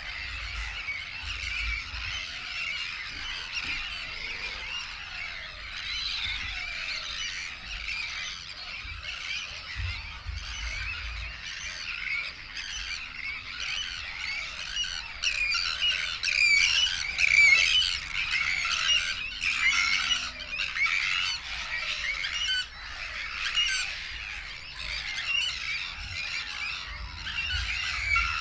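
Dense chorus of many birds calling at once: harsh squawking calls overlapping with no gaps, busier and louder from about halfway through.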